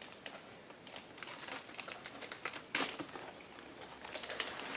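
Small plastic toy wrappers and a paper checklist crinkling and crackling in children's hands as blind-bag toys are unwrapped, in faint, scattered crackles.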